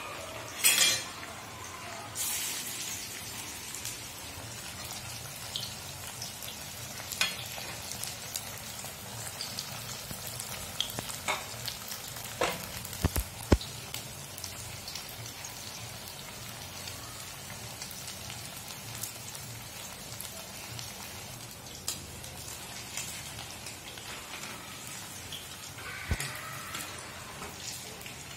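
Gram-flour-battered fish pieces deep-frying in hot oil in a steel kadai: a steady sizzle with scattered pops and crackles. A loud burst about a second in and a fresh surge of sizzling about two seconds in come as another piece goes into the oil.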